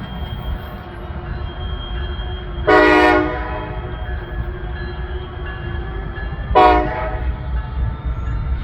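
Norfolk Southern locomotive air horn sounding two blasts: a half-second one about three seconds in and a shorter one near seven seconds. Between and under them runs the steady low rumble of the train.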